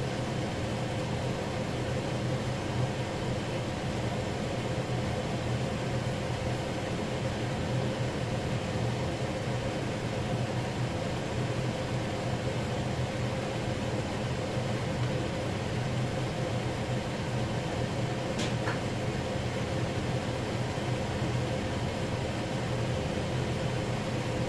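Steady hum of a motor-driven fan, constant throughout, with one faint click about eighteen seconds in.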